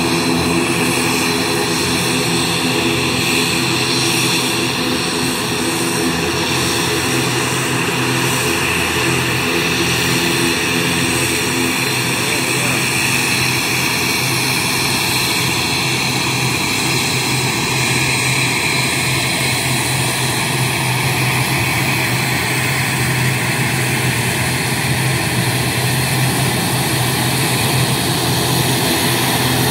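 ATR 72 turboprop airliner's twin Pratt & Whitney PW127 engines and propellers running at taxi power as it rolls in to park, a steady drone of propeller tones under a high whine and hiss.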